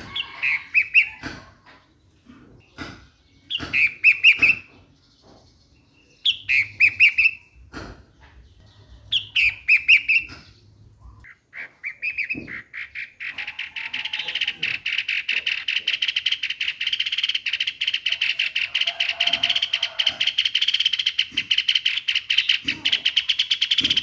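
Streak-eared bulbul calling in four short phrases of quick notes, about three seconds apart. About halfway through, a long, very rapid, even ticking trill builds up and keeps going.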